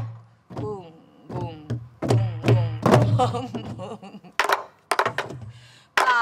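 Sori-buk barrel drums played together in the jungmori rhythm: deep strokes on the drumhead mixed with sharp clacks of the stick on the drum's wooden shell, in an uneven, repeating pattern.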